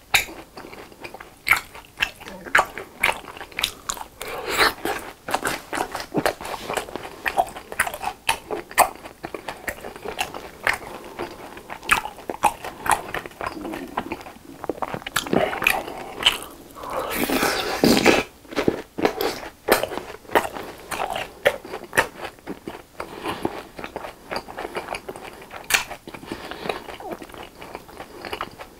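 Close-miked chewing of fried BHC cheese balls: wet, crackly crunching of the fried crust in many small irregular clicks, with a louder, denser stretch of crunching a little past the middle.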